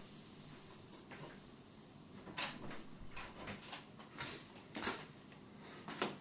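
Light clatter and rustling of tools and small objects being handled, with a handful of short knocks in the second half.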